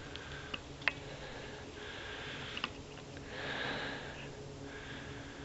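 A person breathing and sniffing close to the microphone, with two longer breaths about two and three and a half seconds in, and a few faint clicks.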